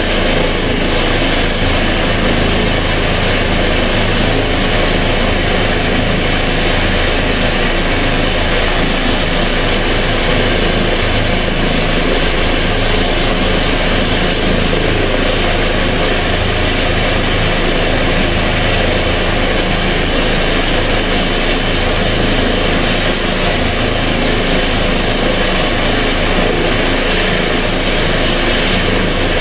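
Eurocopter EC135 T2i rescue helicopter running steadily on the ground before lift-off: its twin turbine engines, main rotor and shrouded fenestron tail rotor give an even, unbroken loud drone.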